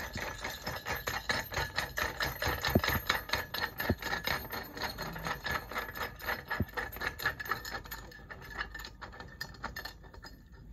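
Quick, irregular metallic clicking and rattling as the metal mounting bracket and bolt of a brushless sewing-machine servo motor are worked by hand, thinning out near the end.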